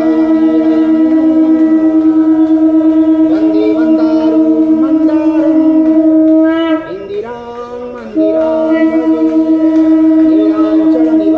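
Temple wind instruments playing: one long steady held note with a wavering melody curling around it. The held note breaks off about seven seconds in and comes back strongly just over a second later.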